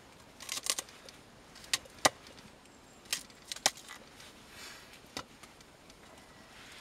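A knife cutting vegetables on wood: irregular sharp knocks and clicks, a few at a time, with short pauses between.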